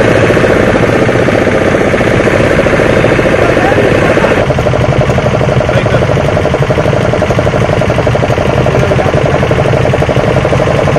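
A motor running loudly and steadily with a fast, even pulsing, its tone changing abruptly about four seconds in.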